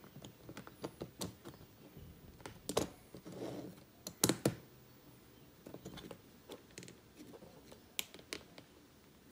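Hard 3D-printed plastic parts clicking and tapping against each other and the cutting mat as they are handled, irregularly, with a few louder knocks near the middle.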